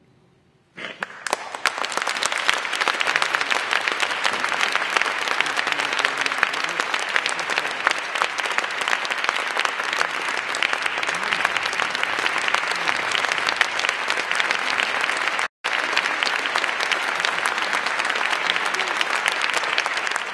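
Concert-hall audience applauding: after a moment of near silence it starts about a second in and goes on as steady, dense clapping. The sound cuts out completely for an instant about three-quarters of the way through.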